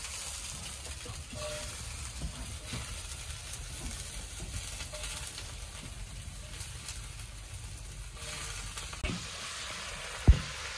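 Egg and zuiki (taro stem) with green onion sizzling as they fry, with small utensil clicks throughout and a single louder knock near the end.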